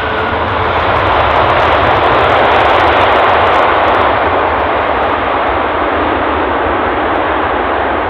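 The Rolls-Royce Trent 700 jet engines of an Airbus Beluga XL roar loudly as the aircraft rolls out on the runway just after touchdown. The roar swells over the first couple of seconds, then eases a little.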